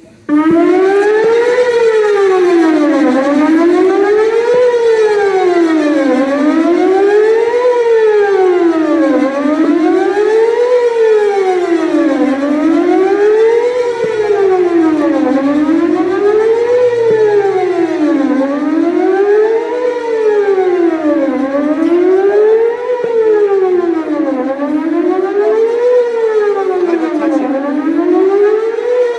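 Whelen WPS-4008 electronic outdoor warning siren sounding its test tone. It starts abruptly and then wails steadily, its pitch sweeping up and down about every two and a half seconds. The rotator is broken, so the speaker array stays still and the loudness does not swell and fade as it would with rotation.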